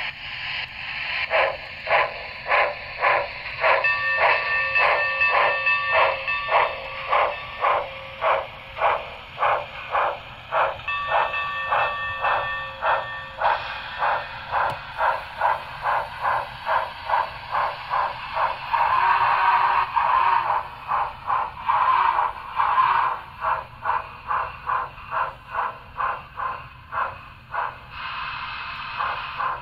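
Sound-equipped model of the Union Pacific 844 4-8-4 steam locomotive playing its steam sounds through a small onboard speaker: even exhaust chuffs, about two to three a second, with a multi-tone whistle held for about three seconds twice, about four and about eleven seconds in.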